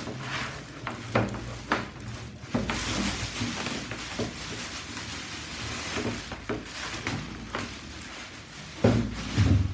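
Clear plastic packaging bag rustling and crinkling as it is worked off an appliance, with scattered small knocks of handling. Near the end there are a couple of louder dull thumps.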